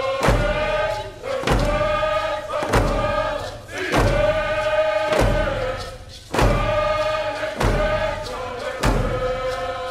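Voices singing a chant over a slow, steady drum beat, about one stroke every 1.2 seconds. The singers hold long notes between the strokes.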